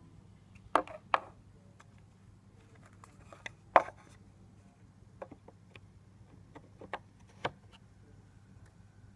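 Knocks and clicks of machine parts being handled as the spindle is taken off a home-built CNC carriage and a block is fitted in its place: three sharp knocks in the first four seconds, then a run of lighter clicks, over a low steady hum.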